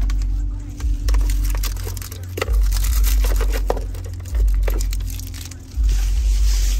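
Crinkling and rustling of things being handled and cleared out of a car, with scattered clicks and knocks. A deep low thud comes back about every two seconds.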